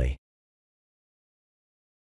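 Digital silence: the last word of the narrating voice cuts off just after the start, and nothing follows.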